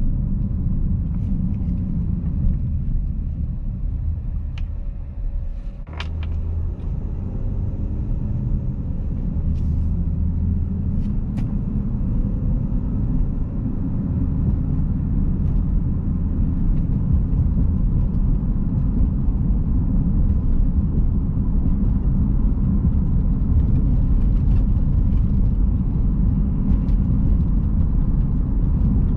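2011 Jeep Grand Cherokee V6 4x4 on the move, heard from inside the cabin: a steady low engine and road rumble. A few short sharp clicks or knocks cut through it, the loudest about six seconds in.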